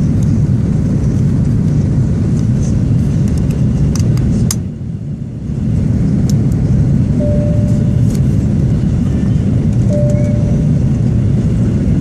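Cabin noise inside a Qantas Airbus A330-200 airliner coming in to land: a loud, steady low rumble of engines and rushing air, with small knocks from the phone being handled. Just before the middle there is a sharp click and the sound goes muffled for about a second, and two short steady tones sound later on.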